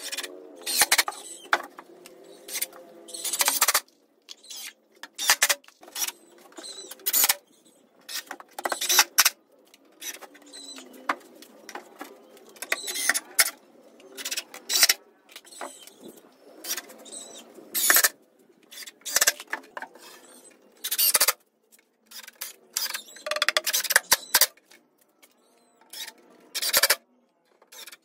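Cordless impact driver driving screws into 18 mm plywood panels in repeated short bursts of a second or less, with pauses between screws.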